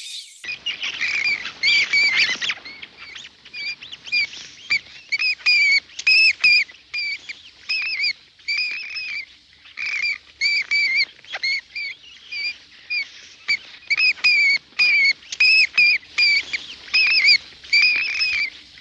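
An animal calling in quick runs of short, high, chirping notes, each note rising and falling, with short pauses between the runs.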